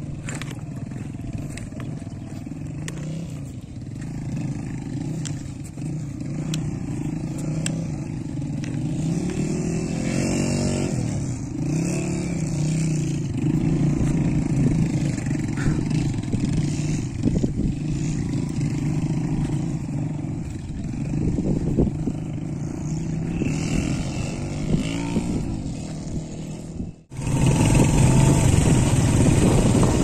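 A vehicle engine running under way, its pitch rising and falling again and again as the throttle changes. About 27 s in the sound cuts abruptly to louder wind buffeting the microphone.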